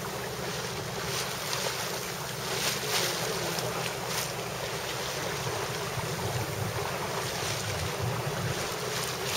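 Steady wind buffeting the microphone over the rush of water along a moving motorboat's hull, with the boat's engine humming low underneath.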